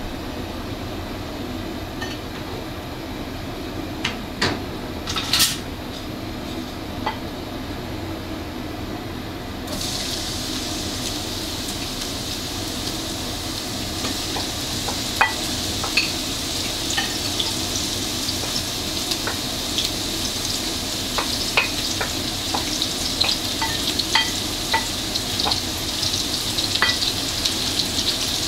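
A few clinks of a utensil against a pan. Then, about ten seconds in, sizzling starts suddenly in hot oil and the food keeps frying, with frequent crackles and pops.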